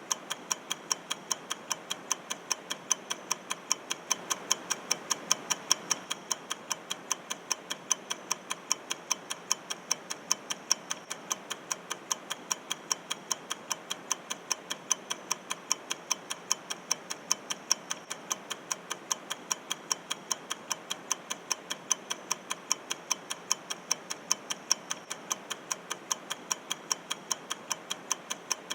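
Ticking clock sound effect marking a quiz countdown timer, an even tick-tock of about two ticks a second.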